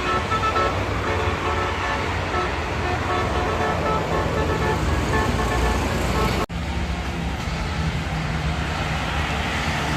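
Bus telolet horn of the basuri type playing a quick run of short melodic notes over the rumble of passing traffic for the first few seconds. After an abrupt cut about six and a half seconds in, a steady low engine hum is left.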